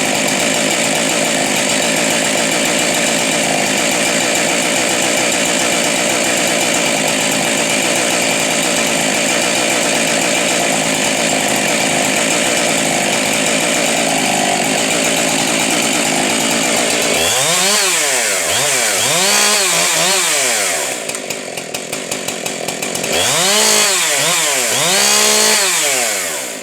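Modified Husqvarna 372 XTorq two-stroke chainsaw running steadily at full throttle for about seventeen seconds. It is then revved in quick throttle blips, each rising and falling in pitch, in two groups with a short idle between them, and cuts off at the very end.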